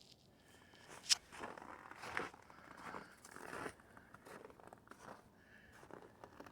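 Faint scattered scuffs and clicks, with one sharp click about a second in.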